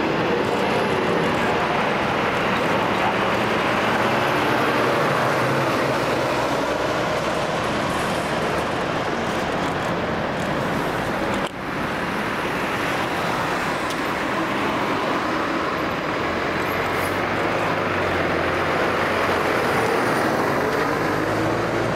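Fire engines driving past in a procession, a steady rush of engine and road noise with one brief dip about halfway through.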